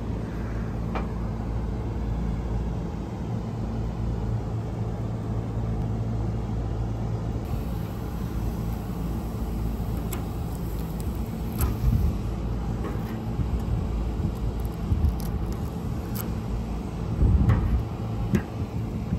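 Steady low machine hum and rumble, with a few short metallic clicks and ticks as needle-nose pliers pick at the crushed fins of an aluminium microchannel condenser coil.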